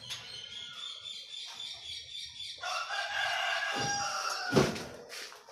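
A rooster crowing, ending in a long held note, followed near the end by a single sharp knock.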